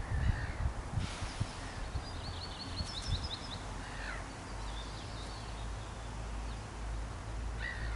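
Small birds chirping, with one quick trill of high notes about two seconds in and more chirps after it, over a steady low rumble of wind that gusts near the start.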